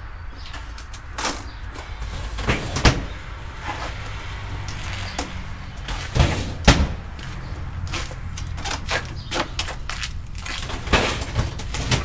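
Plastic produce crates being set down and slid onto a trailer's wooden display shelves: irregular clacks and knocks, the loudest a pair just after six seconds in, over a steady low hum.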